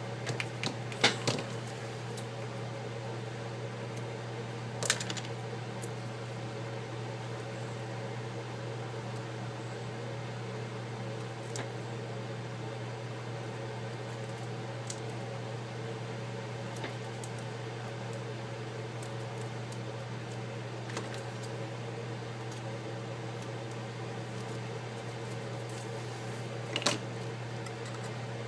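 A steady low electrical hum, with a few sharp clicks and taps from handling double-sided tape and the iPad bezel: a cluster about a second in, one about five seconds in and one near the end.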